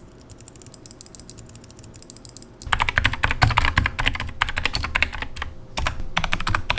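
Rapid typing on a mechanical keyboard with Kailh Speed Bronze clicky click-bar switches, a quick run of sharp key clicks. The typing is faint at first and becomes much louder about two and a half seconds in.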